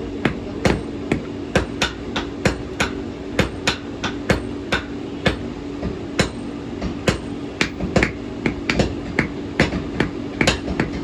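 Blacksmith's hand hammer striking a thin iron rod on a small anvil, sharp metallic strikes about three a second with a short pause about halfway through.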